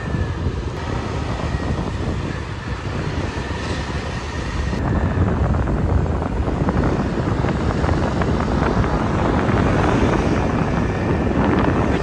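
A vehicle being driven along a road: a steady rushing drone of engine and road noise, getting louder about five seconds in.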